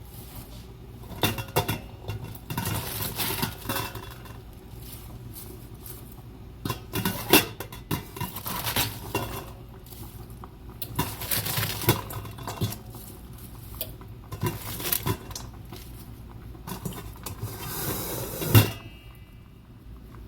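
Cabbage strips being put into a pot, with irregular rustling and clinks and knocks of a utensil against the pot, the loudest knock near the end, over a steady low hum.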